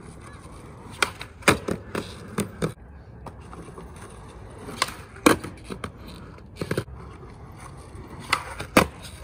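Skateboard on a concrete ledge and pavement: sharp wooden clacks of the board popping and landing, in several quick groups of knocks during repeated trick attempts.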